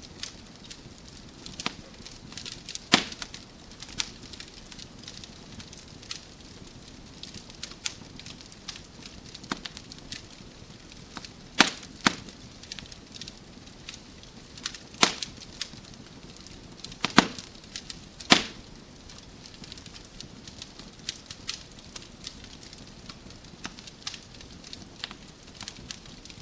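Wood fire crackling in a fireplace: a steady soft hiss with irregular sharp pops, a handful of louder pops through the middle.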